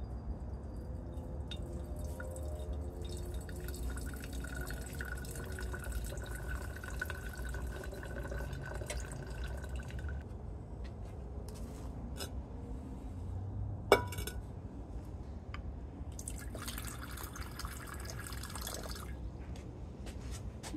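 Chemical reaction in a glass mason jar heated in a water bath on a hot plate: the liquid fizzes, drips and pops against the glass over a low steady hum. A single sharp click past the middle is the loudest sound.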